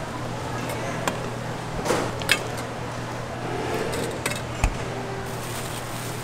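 Stainless steel kitchenware clinking: steel tongs and a metal noodle bowl knocking against a steel counter, with several sharp clinks and one deeper knock, over a steady low hum.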